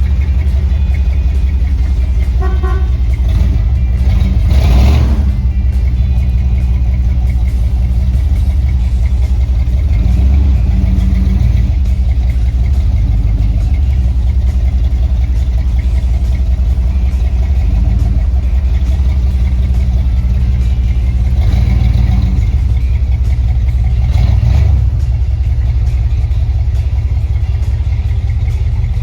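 Dodge 440 big-block V8 running steadily while driving, a deep low rumble with two brief louder swells, about five seconds in and again near the end.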